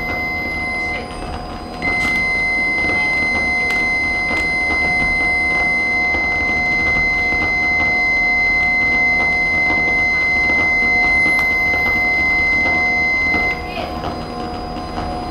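Electronic drone score: a sustained high steady tone over a lower hum and hiss, with a faint very high whistle sliding down and later rising. The high tone cuts out briefly about a second in and stops near the end.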